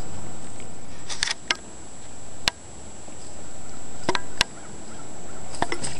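A handful of sharp clicks and knocks spread through, over a steady hiss that swells between them and drops after each one, with a faint high whine throughout.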